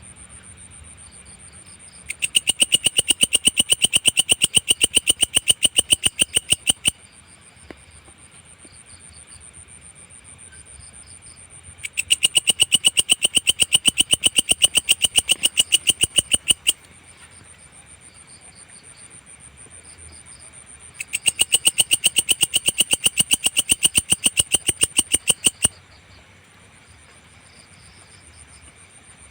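A belalang (grasshopper-type singing insect) calling in three bouts of a rapid, evenly pulsed high-pitched trill, each lasting about four and a half seconds with pauses of about five seconds between. A steady high buzz runs underneath between the bouts.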